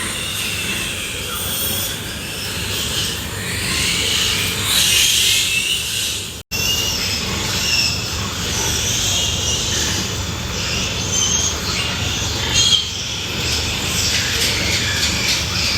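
Pigs squealing, a dense, continuous high-pitched chorus, broken by a sudden gap about six seconds in.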